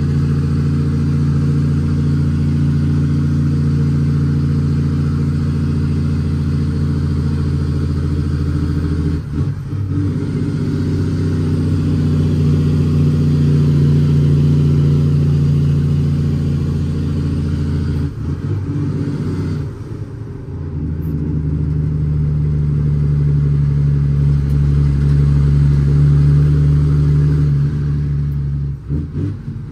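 The 525 hp Cummins ISX straight-six diesel of a fully loaded International ProStar dump truck, running under load and heard from inside the cab. The engine note breaks off briefly about a third of the way in, again a little past halfway, and near the end, as gears are changed on the 18-speed transmission.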